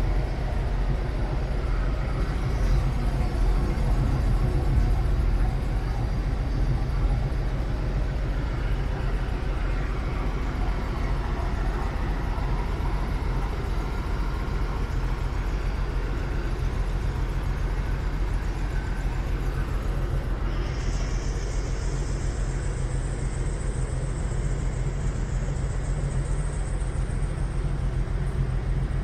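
1951 Dodge M37's flathead straight-six engine idling steadily.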